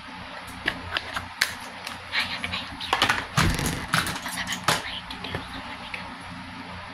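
Handling noise from makeup items being put down and picked up close to the microphone: scattered clicks and knocks, with a louder cluster of bumps and rustling about three to five seconds in.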